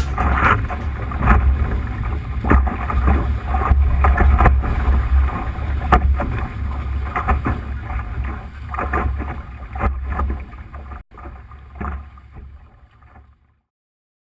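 Wind rumbling on the microphone of a sailing dinghy under way, with water rushing and splashing against the hull in repeated sudden surges. It fades out near the end.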